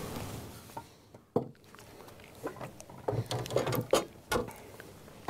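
Handling noises as a crappie is unhooked by hand in a boat: a sharp tap about a second and a half in, then a run of small knocks and scuffs.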